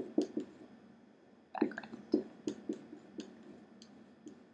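Dry-erase marker writing on a whiteboard: a run of short, irregular squeaks and taps, one with each stroke of the letters, with a pause about a second in.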